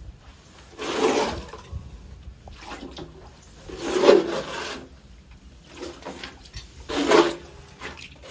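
Sludge being scraped up from the bottom of an underground heating-oil tank, in three scraping strokes about three seconds apart.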